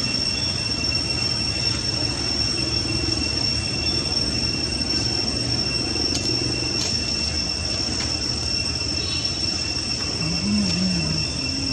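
Insects droning in two steady high-pitched tones over a continuous low rumble of background noise.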